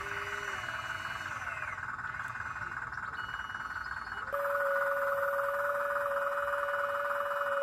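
A steady chorus of trilling frogs, with the whine of a small electric motor starting abruptly a little past halfway and holding one pitch.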